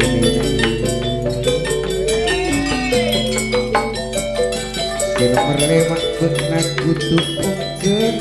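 Gamelan ensemble playing a gending: struck metallophones carry a stepped melody over sustained low tones, with a short arching glide in pitch about two to three seconds in.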